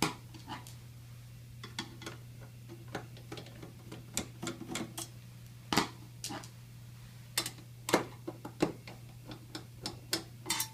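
Irregular light clicks and metallic taps of a screwdriver and small pan head screws being worked out of a sheet-metal side cover and handled, over a steady low hum.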